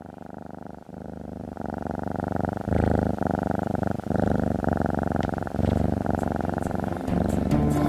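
A domestic cat purring close to the microphone: a steady, fast pulsing rumble that grows louder over the first few seconds.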